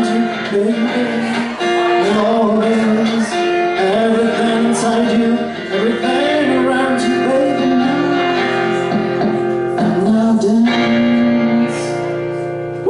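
Music: a song passage with guitar and a gliding lead melody over sustained chords, settling into long held notes near the end.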